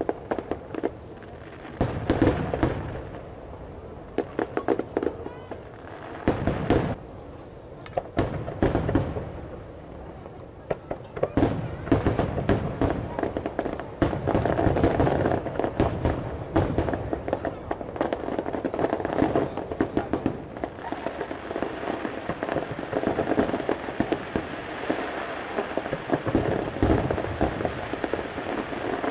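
Aerial fireworks shells bursting in a display: separate booms every second or two at first, then from about twelve seconds in a dense, nearly continuous barrage of bangs and crackle.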